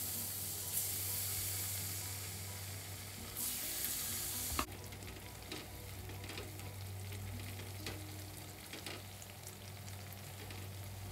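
Battered tempeh slices frying in hot oil in a wok: a loud sizzle as the first pieces go in, a second surge a few seconds later, then a steadier, quieter sizzle. Light clicks of a silicone spatula against the pan as the pieces are moved.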